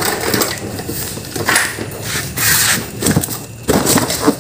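Cardboard box being handled and its flaps pulled open, with irregular rustling and crumpling of cardboard.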